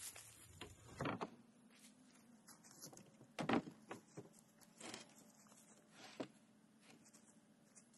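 Faint, scattered knocks and clicks of old barn-wood boards being handled and set on a cinder-block pit lid, a few separate hits with the clearest about a second and three and a half seconds in.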